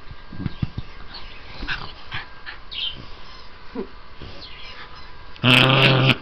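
A small white terrier lets out a loud, low, drawn-out vocal sound near the end, lasting under a second. Before it there is faint, scattered rustling as the dog is petted.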